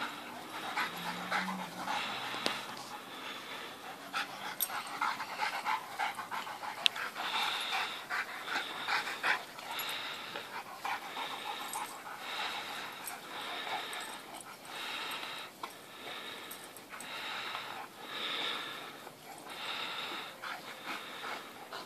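Dogs panting while they play-wrestle, in breathy bursts that repeat about once a second through the second half.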